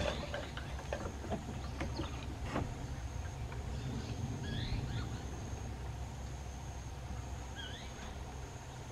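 Knocks and clicks from a rope-hung wooden swing perch as a baby woolly monkey swings and climbs on it, mostly in the first few seconds. A few short rising chirps come around the middle and near the end, over a steady low rumble and a faint steady high tone.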